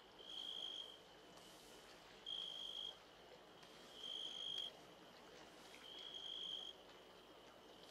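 Crickets chirping: a high, even trill about half a second long that repeats four times, roughly every two seconds.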